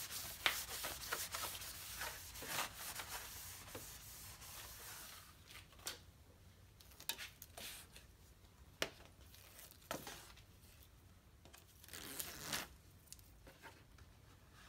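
A cloth rubbing along the edge of a plastic grille as it is wiped down with alcohol, for about five seconds. Then come a few short tearing rasps as the red backing liner is peeled off the double-sided tape of a rubber seal and the seal is pressed onto the grille.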